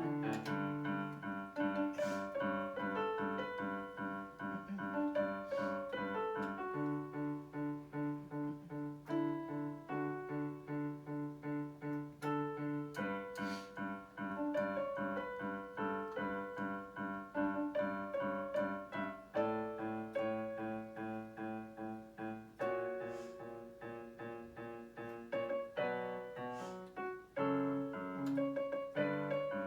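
Solo piano being played: a melody over repeated chords and low bass notes in an even rhythm, played by a young learner.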